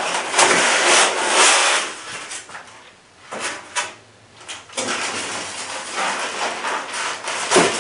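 Polystyrene foam packing case being opened: the foam lid scraping and rubbing as it is lifted off, then plastic wrapping rustling as hands work over the rifle inside, with a few clicks and a sharp knock near the end.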